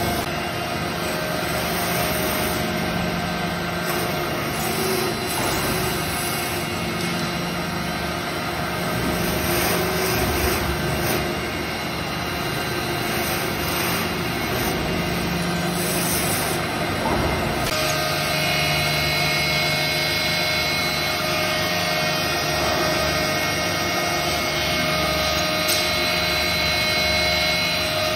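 Woodworking machinery running steadily, starting with a four-side sanding machine feeding wooden strips past its sanding rollers. The machine noise changes abruptly about 18 seconds in, as a different workshop machine takes over.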